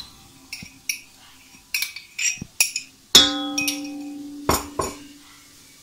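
Light clinks and taps of a glass against a stainless-steel mixing bowl. About three seconds in, a single plucked note rings out and fades over a couple of seconds, followed by two more sharp taps.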